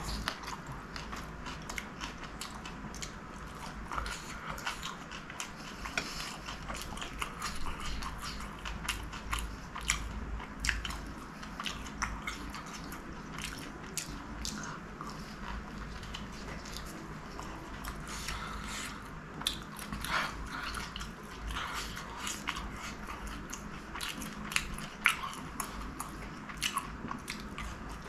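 Close-miked eating of a fried chicken samosa: chewing with many irregular crunches and mouth clicks.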